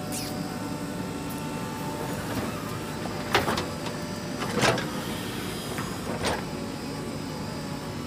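Diesel engine of a JCB 3DX backhoe loader running steadily under load as it digs and loads soil, with a few sharp knocks and clanks, the clearest about three and a half seconds in, near five, and near six and a half.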